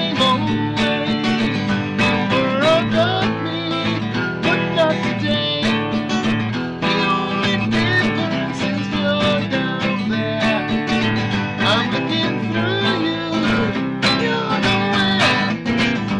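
Steel-string acoustic guitar being strummed, a continuous run of chords.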